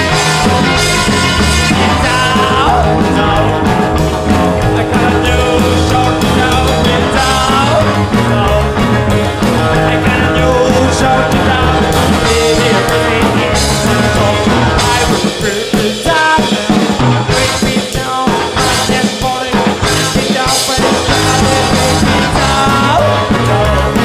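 Background rock-and-roll band music, a live recording; the bass drops out briefly about fifteen seconds in.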